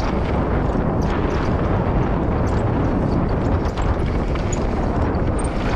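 Mountain bike descending a packed-dirt trail: tyres rolling on dirt, wind buffeting the camera microphone, and a steady run of small clicks and rattles from the bike.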